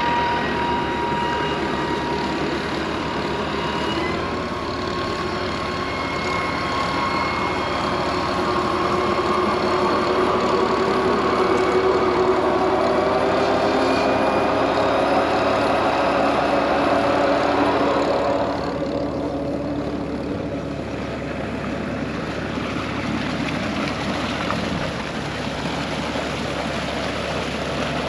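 Kubota tractor's diesel engine running a PTO-driven water pump. The engine note climbs gradually over several seconds, then about two-thirds of the way in the sound turns to a more even rush, with water pouring out of the pump's discharge pipe.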